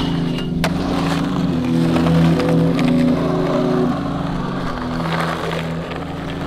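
Background music of sustained low chords that change pitch every second or so, with skateboard wheels rolling on pavement and a few sharp clacks from the board underneath.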